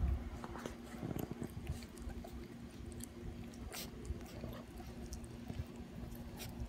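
Mother chihuahua licking and grooming her puppy's head: faint, irregular licking and small mouth clicks.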